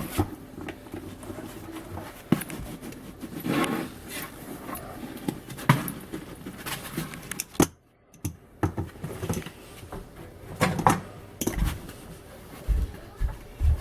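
Pomeranian puppy moving about in a box: scattered small knocks, scratches and rustles, with a short gap of near silence about eight seconds in.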